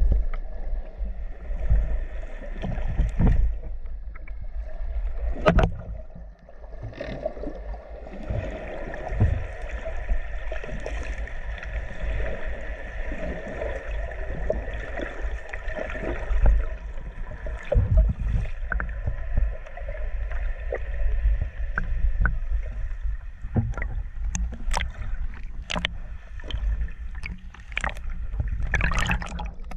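Muffled underwater audio from a camera held below the sea surface: a low rumble and sloshing of water, broken by scattered knocks and clicks. A steady hum stands out for several seconds in the middle.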